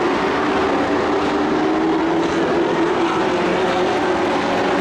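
Engines of several racing pickup trucks running at speed around an oval track, a steady drone whose pitch wavers slightly as the trucks circle.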